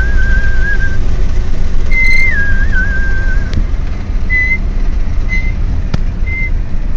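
Someone whistling a short repeated phrase, a high held note that steps down to a lower wavering one, with a few short notes in between, over the steady low rumble of a car.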